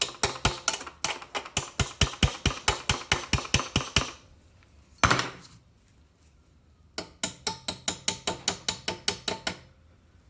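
Small hammer tapping quickly on the exhaust valve guide of a Honda GCV160 engine's cylinder head, about five metal strikes a second. There are two runs of taps, with a single strike between them.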